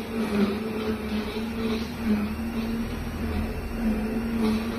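Longbank quiet cooking blender running through a program with a steady motor hum: a low tone and its overtone over a soft whir.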